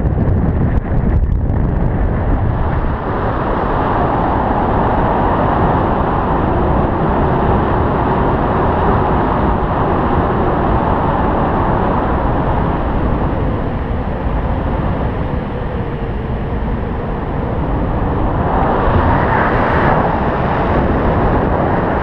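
Wind rushing over a GoPro camera's microphone during a tandem paraglider flight: a steady, loud rumble and hiss that swells slightly near the end.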